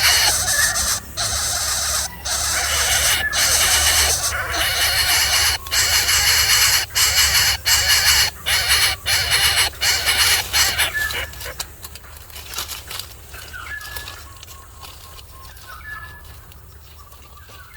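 Loud, harsh bird squawking, broken by short gaps, that dies down about eleven seconds in to a quieter stretch with a few short calls.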